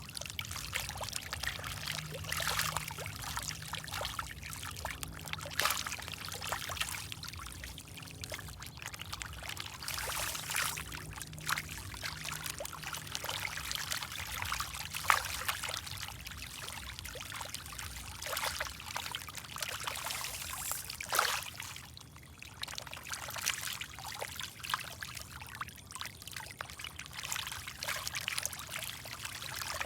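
Water pouring and trickling steadily, with irregular splashes breaking the surface.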